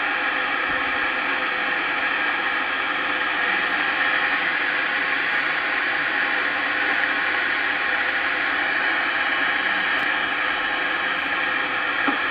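Steady static hiss from a Superstar SS-3900 CB radio's speaker, with no station coming through.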